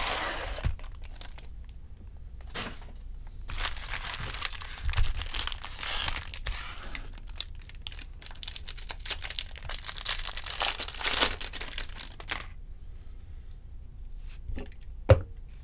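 Foil wrapper of a 2020 Topps Series 2 jumbo baseball card pack crinkling and tearing as it is opened by hand, in bursts for about twelve seconds. It then goes quieter, with light handling of the cards and a sharp tap near the end.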